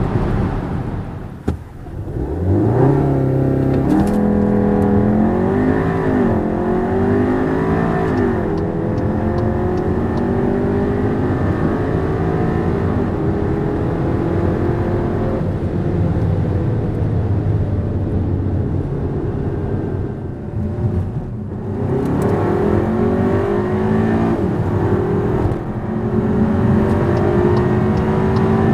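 Skoda Superb 4x4's engine pulling under hard acceleration, its pitch climbing through the gears. The note drops briefly at gear changes about a second and a half in and again around twenty seconds in.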